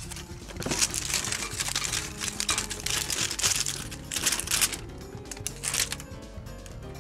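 Background music with steady low notes, over a bout of crinkling and rustling from about half a second to nearly five seconds in, as a cat bats at a feather teaser toy through wire cage bars.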